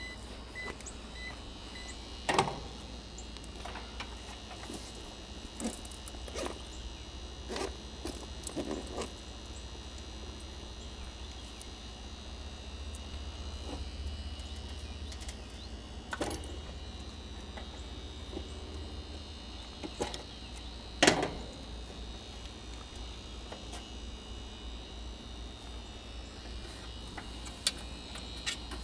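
Scattered metallic clicks and knocks from tools and panel parts being handled at an AC condensing unit, over a steady low hum; the loudest knocks are about two seconds in and about twenty seconds in.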